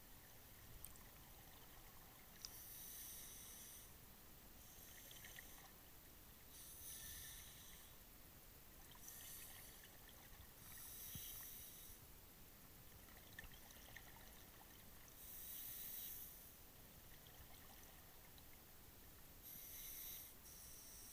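A scuba diver's regulator breathing underwater, heard through the camera housing: faint bursts of bubbling hiss from exhaled bubbles, about six of them, a few seconds apart.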